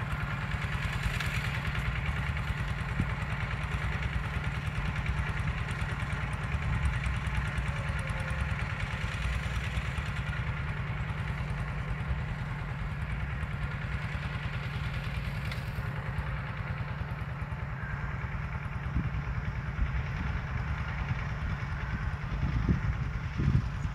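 Walk-behind two-wheel hand tractor's engine running steadily with an even, rapid pulse as it pulls iron cage wheels through the soil between sugarcane rows. A few low thumps near the end.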